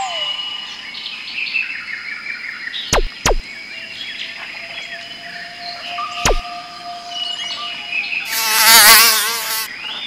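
Playful added soundtrack of chirping, whistle-like electronic tones and short pitch glides, with sharp clicks about three seconds in and again about six seconds in, and a loud buzzy warbling sound effect near the end.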